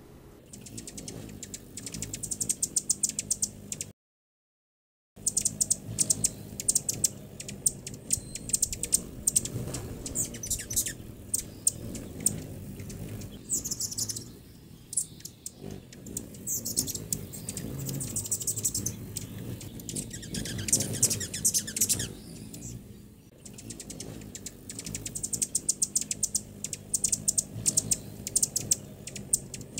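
A crowd of hummingbirds chipping and chittering at feeders: rapid, high, dry chips in dense runs, broken by a second of dead silence about four seconds in.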